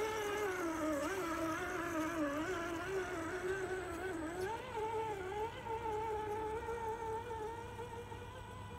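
Electric drive motor and gears of an RC scale crawler truck whining, the pitch wavering up and down with the throttle and growing fainter over the last few seconds as the truck drives away.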